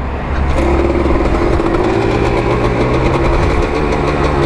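Motorcycle engine running steadily at idle.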